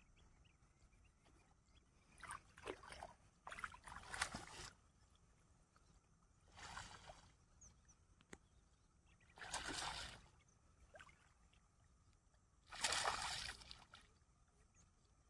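Water splashing and sloshing in shallow, weedy marsh water, in about five short bursts, the last the loudest.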